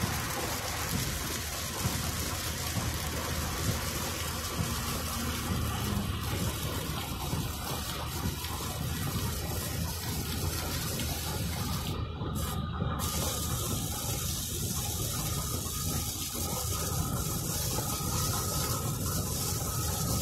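Steady rush of heavy rain and wet-road tyre spray, with a low road rumble, heard from inside a moving car.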